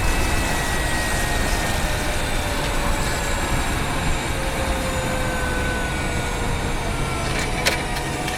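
2019 Honda Freed Hybrid's drive noise heard from inside the engine bay: a steady road rumble with several thin whining tones that glide slowly down in pitch, as when the car slows. A sharp click comes near the end.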